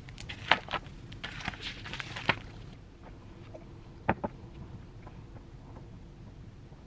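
Small handling sounds at a desk: papers being touched and turned, with a run of sharp taps in the first couple of seconds, then a quick double knock about four seconds in.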